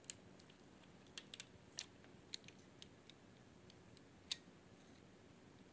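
Faint, scattered light clicks and ticks as a 2.5-inch laptop hard drive is handled with a small screwdriver: its circuit board is unscrewed and lifted off the drive's metal casing.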